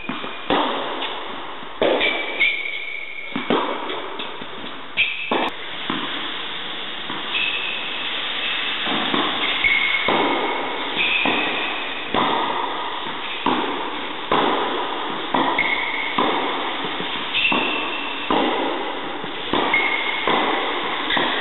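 Tennis balls struck again and again by rackets in a rally, each hit a sharp pock that rings briefly in the indoor tennis hall, about once every second or so. Short high squeaks come in between, typical of tennis shoes on the court surface.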